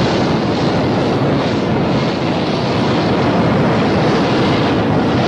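Rocket engines at launch: a loud, steady rush of noise with no tune in it.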